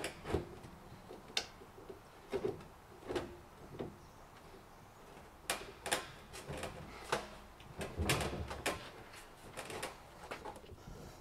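Plastic clicks and knocks of a 3/4-inch PVC pipe being handled and pushed into its PVC elbow and tee fittings as it is dry-fitted. The knocks come in scattered ones and twos, busier in the second half, with a short scrape about eight seconds in.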